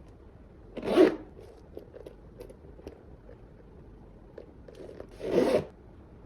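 A bag's zipper pulled twice in quick zips of about half a second each, about four and a half seconds apart, with light rubbing and handling noise between.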